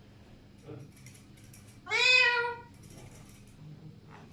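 An Alexandrine parakeet gives one drawn-out call about two seconds in, rich in harmonics and meow-like, rising then slightly falling in pitch.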